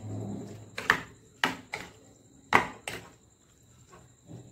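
A metal spoon knocking and scraping against a bowl while tossing raw chicken pieces in a wet marinade, with several sharp clinks over about two seconds.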